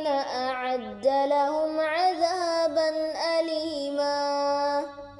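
Quran recitation in a high voice, a slow melodic chant with long held notes and ornamented glides, most likely the end of the surah's final verse; the voice fades out about five seconds in.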